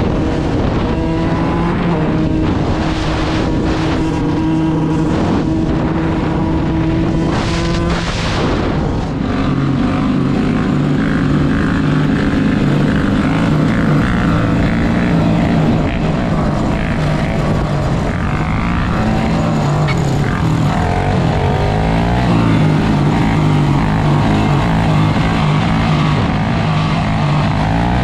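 Yamaha YZ125 two-stroke dirt bike engine running under way, heard from the bike itself, with wind buffeting the microphone. Its note holds steady for the first eight seconds or so, then changes and wavers for the rest.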